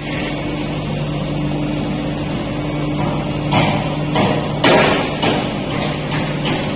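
CNC fast wire cutting machine running: a steady hum with a low tone, broken by about four short bursts of hissing noise in the middle.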